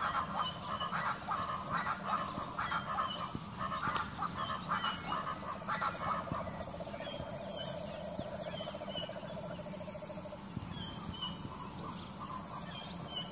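Animal calls: a string of short repeated calls, then a rapid trill lasting about five seconds from about midway, with faint high chirps, over a steady low background hum.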